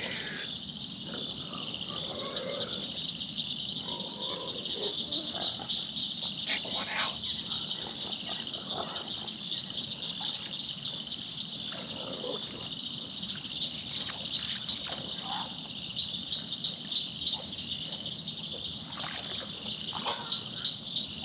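Steady, high-pitched, fast-pulsing chorus of night insects such as crickets, with faint scattered lower sounds beneath it.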